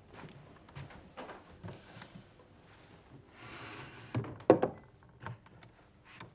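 A few soft wooden knocks and a brief rustle in a quiet room, with one sharp, louder knock about four and a half seconds in.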